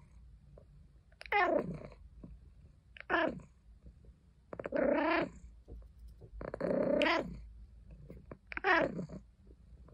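A white British Shorthair cat meowing five times in short complaining calls. Most of the calls fall in pitch; the third and fourth are longer and lower.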